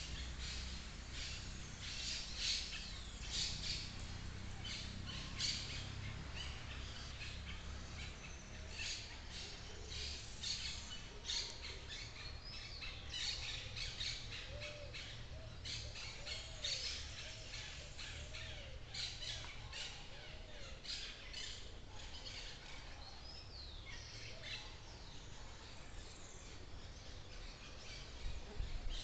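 Several wild birds chirping and calling in a forest, with frequent short high notes and trills and a run of lower arched notes about halfway through, over a low steady rumble.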